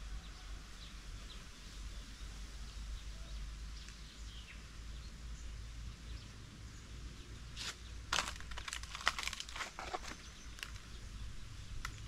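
Footsteps crunching on dry stony, leaf-strewn ground, a short run of steps in the second half, over a steady low rumble. Faint scattered bird chirps are heard earlier.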